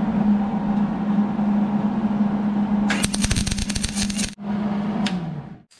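Hobart wire-feed welder spot-welding a nut onto a steel bracket: a steady electric arc crackle over a hum, turning harsher and louder about three seconds in. After a brief break there is one more short weld, which stops shortly before the end.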